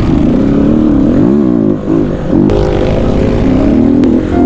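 Motorcycle engine running hard off-road, its pitch rising and falling again and again as the throttle is opened and eased.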